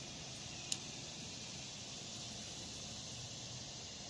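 Steady high hiss of outdoor background noise, with one short sharp click less than a second in.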